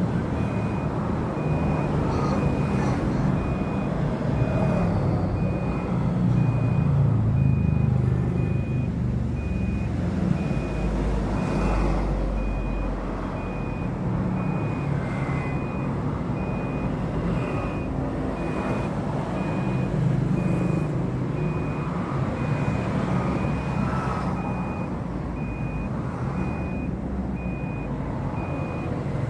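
A short, steady, high electronic beep repeating about twice a second, over a continuous low rumble like a running motor.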